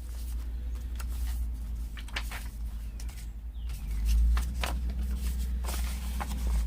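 Paper rustling and scraping as a tight-fitting piece of paper is worked into a paper envelope, with many short crackles over low handling bumps that are heaviest about four seconds in.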